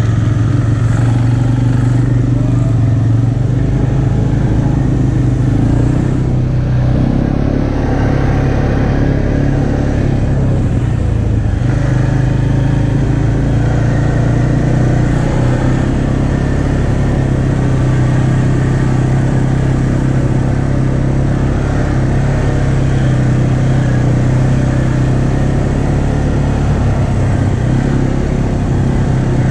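ATV engine running steadily as it is ridden along a dirt trail, heard from the machine itself, with little change in engine speed.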